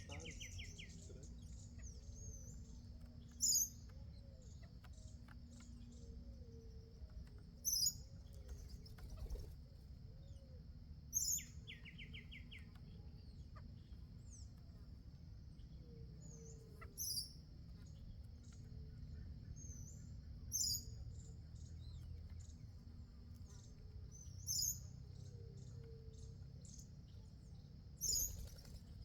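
A bird repeats a short, sharp, high call about every three to four seconds, with a brief fast trill twice, over a steady high-pitched buzz.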